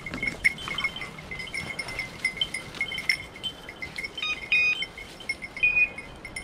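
Bells on the collars of working bird dogs tinkling irregularly in short, high rings as the dogs move and cast through cover.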